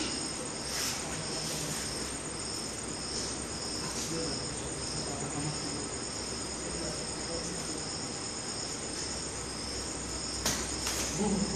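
Crickets chirping in a steady rhythm, about two pulses a second, over a continuous high insect trill. Two sharp clicks come near the end.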